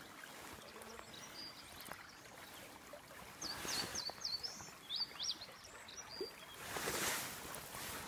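Small stream running steadily, with a small bird chirping several quick high notes in the middle. A brief louder rush of noise comes near the end.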